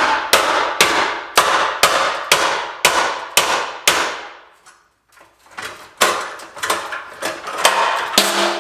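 Hammer blows on metal, about two a second, each ringing briefly. The blows pause for about a second and a half midway, then go on.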